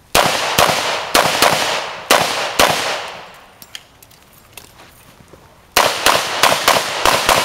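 Pistol shots: about six fairly quick shots, a pause of about three seconds, then another six in faster succession. Each shot trails off in a ringing echo.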